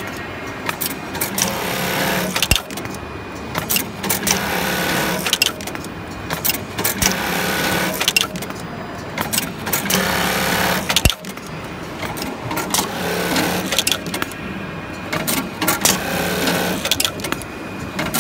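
Automatic industrial trouser sewing machine stitching in repeated runs of a second or more, its motor humming and stopping between runs. Sharp mechanical clicks and knocks from the clamp and feed mechanism come between the runs, with two heavier thumps, one about two and a half seconds in and one about eleven seconds in.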